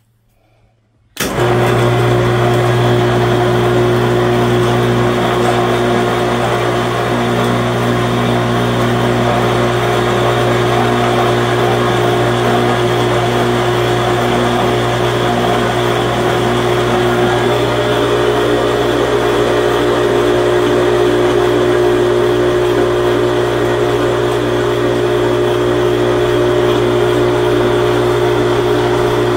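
Harbor Freight 1,100 lb electric hoist switching on about a second in and running steadily with a low hum, winding out cable to lower a loaded homebuilt stairlift carriage down its stair track.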